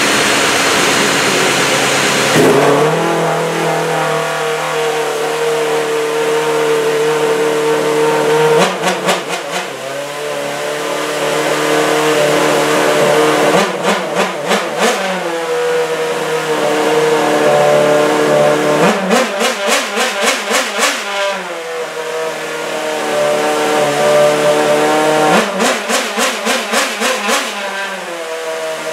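Red Bull RB7 Formula One car's 2.4-litre Renault V8 running on the stand. It is loud and rough for the first two seconds or so, then settles into a steady idle. Four times it is given a quick run of short throttle blips lasting one to two seconds, and in the last two the idle steps up in pitch.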